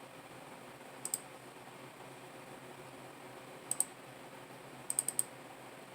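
Sharp computer mouse clicks over a faint steady hiss: a double-click about a second in, another near the middle, and a quick run of four clicks near the end.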